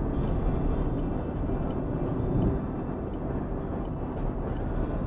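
Fiat Uno Economy driving at highway speed, heard from inside the cabin: steady engine and tyre noise.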